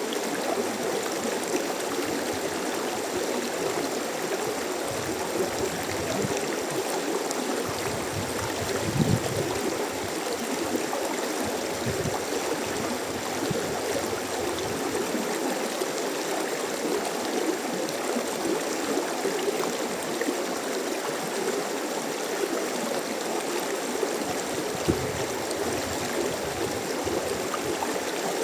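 Mountain stream flowing: a steady, unbroken rush of water.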